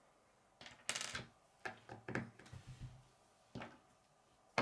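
K'nex plastic rods and connectors clicking and clacking as they are handled and pressed together on a wooden tabletop: a quick cluster of clicks about a second in, several more over the next two seconds, then one more near the end.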